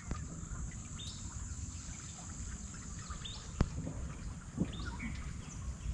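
Lakeside outdoor ambience: a steady high insect drone with short rising bird chirps every second or so over a low background hiss. There is one sharp click about three and a half seconds in.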